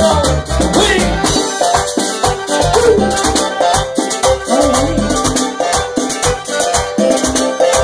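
Live Latin band music, with a fast, steady shaker-like percussion rhythm under a melodic line.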